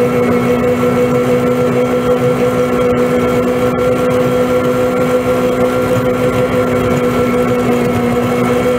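Vehicle engine running at a steady, unchanging pitch while pushing a snow plow along a forest road, heard from inside the cab.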